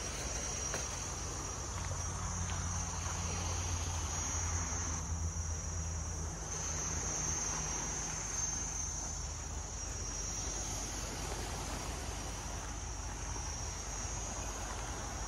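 Insects chirring in a steady, high, unbroken drone over a background hiss, with a low hum from about two to six seconds in.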